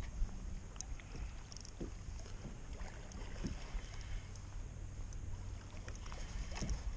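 Steady low wind rumble on the microphone, with water lapping against a kayak hull and a few faint clicks.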